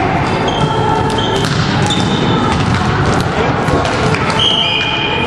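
Volleyball play in a large sports hall: balls being struck and bouncing on the floor, players' voices, and high sneaker squeaks on the court floor, the loudest near the end, all echoing in the hall.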